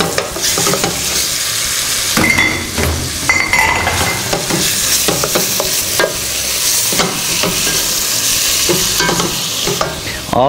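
Cubed lamb sizzling in hot oil with onions and carrots in a stainless steel pot as it starts to brown, stirred with a wooden spoon that scrapes and knocks against the pot now and then.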